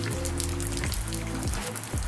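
Background music with sustained notes and a bass line, over a dense crackling patter of many small ticks.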